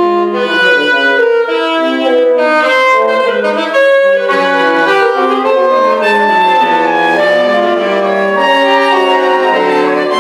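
Saxophone quartet, a straight soprano saxophone among them, playing a piece of chamber music. Several lines move at once in quick, short notes without a pause.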